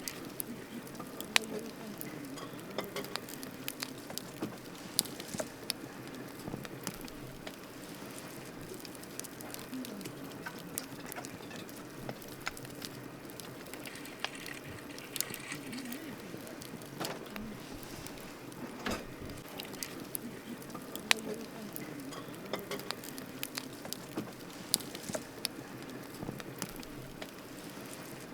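Wood campfire burning: a steady low rush of flames with irregular sharp crackles and pops from the burning wood, several a second at times.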